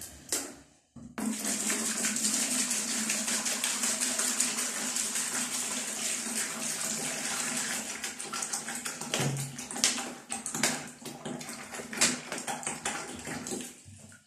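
Water poured from bottles into a plastic bucket, diluting primer. It starts about a second in as a steady pour, then breaks into uneven glugs and splashes for the last several seconds as the bottles empty.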